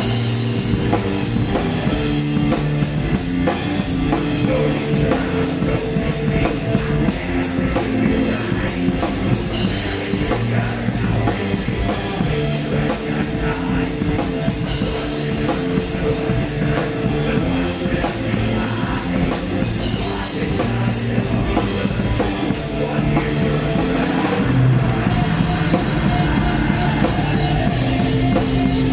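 Black metal band playing live, heard close to the drum kit: fast drumming with cymbal and snare hits over distorted electric guitars. The fast hits thin out in the last few seconds.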